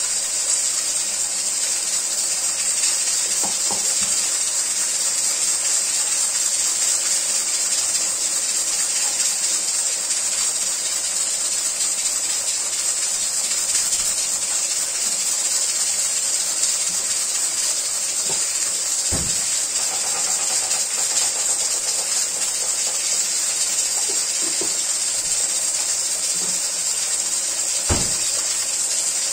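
Liver and onions sizzling in a steel pot as a steady high hiss, with a couple of light knocks, one near the middle and one near the end.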